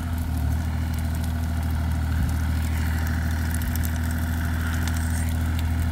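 Diesel engine of a Bobcat E35 mini excavator running steadily with a low, even hum.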